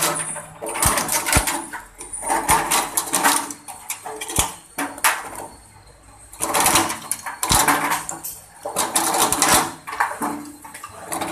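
Coconut-shell peeling machine: a coconut pressed against its spinning studded drum gives bursts of rapid chipping and rattling as the hard shell is gouged away. The bursts last about a second each, with short gaps between them.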